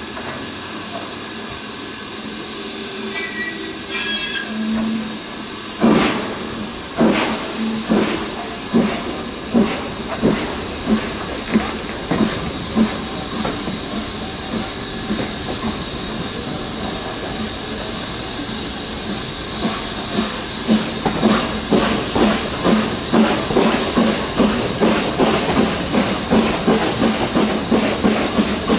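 A whistle sounds for about two seconds. Then BR Standard Class 9F 2-10-0 92214's two-cylinder steam exhaust beats out as it gets away, heard from a carriage behind. The beats start heavy and about a second apart and quicken to several a second, over a steady hiss of steam.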